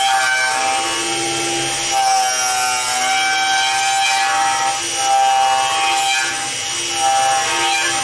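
Laminate trimmer (a small router) running and cutting a hole through a foam wing part. Its motor whine is steady, with the cutting noise rising and falling as the bit works through the foam.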